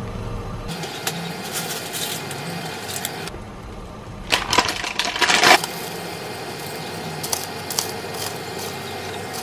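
Cheese being grated over a pan, a light scraping, then a loud crinkle of about a second as a plastic packet of roasted seaweed is handled and opened. After it come faint crisp crackles as dried nori sheets are torn over the pan.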